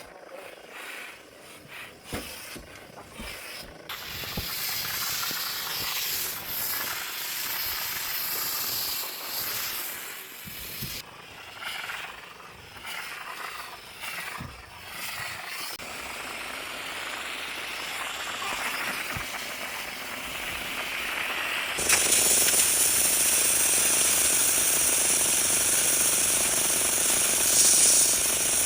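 Bissell steam cleaner jetting steam with a hiss, mixed with clicks and rattles. After about twenty seconds it turns into a louder, steady high hiss.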